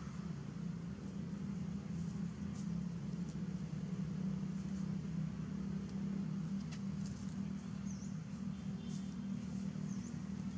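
A steady low hum, like a distant engine, with a few faint short high chirps in the second half.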